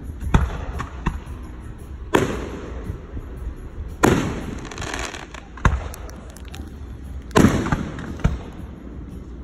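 Aerial fireworks shells exploding overhead: about eight sharp bangs. The biggest come about two, four and seven and a half seconds in, and each trails off in a fading rumble.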